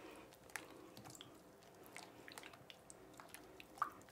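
Faint, irregular squelching and sticky popping of a hand kneading thick slime in a glass bowl, with one sharper pop near the end. The slime is still sticky as activator is worked in, not yet fully activated.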